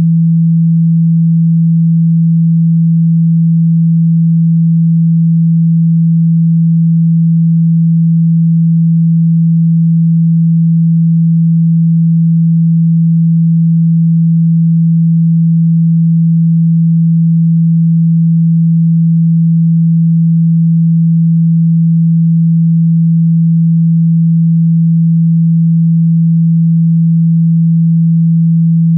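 A pure 165 Hz sine-wave test tone, a single low hum held at one steady pitch and loudness. It is played to vibrate a phone's speaker and shake out trapped water and dust.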